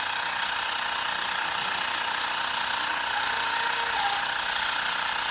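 Xiaomi Mi portable electric air compressor running steadily as it pumps up a car tyre from 28 psi toward a 35 psi setting, with a constant mechanical buzz.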